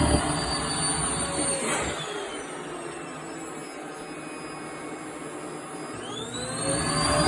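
Vacuum cleaner motor winding down, its whine falling in pitch over the first two seconds. It runs low for a few seconds, then spins back up with a rising whine near the end.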